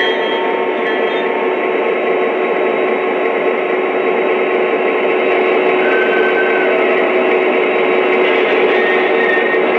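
Lionel O-gauge model diesel locomotive running on track, its onboard sound system playing a steady diesel engine drone through a small speaker, mixed with wheel and track rumble.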